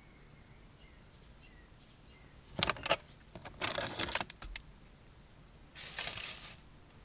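Keys rattling and clicking in a cluster of sharp jingles, then a short rustle near the end; no engine cranks or runs.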